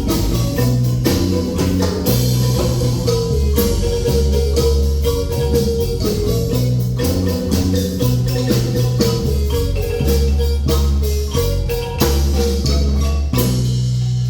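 Music led by a marimba, with quick repeated mallet notes over a low bass line and drums keeping a steady beat.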